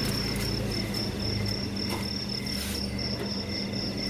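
Bicycle rear wheel spinning freely after a turn of the pedals, its Shimano M430 freehub ticking steadily and rapidly as the wheel coasts: a free-running, smooth hub.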